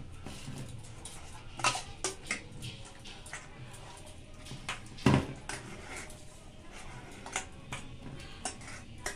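Stainless steel bowls clinking and knocking together as sticky pulp is scraped by hand from one bowl into the other, with scattered sharp clinks, the loudest about five seconds in.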